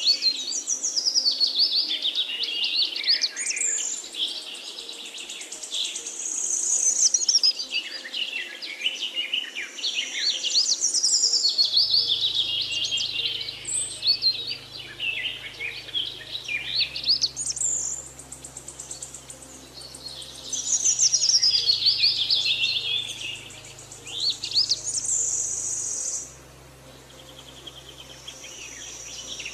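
Songbirds chirping and trilling in a dense chorus, with short lulls between bursts of song. A faint low hum joins about twelve seconds in.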